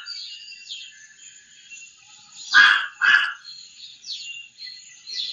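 Raven croaking: harsh, guttural calls, one at the very start and two in quick succession about two and a half seconds in. Smaller birds chirp faintly in the background.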